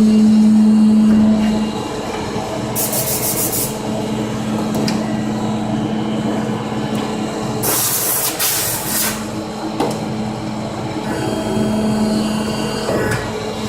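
Hydraulic paving-tile press working: a steady hum, stronger in the first two seconds and again near the end, with two hissing bursts, a short one about three seconds in and a longer one about eight seconds in.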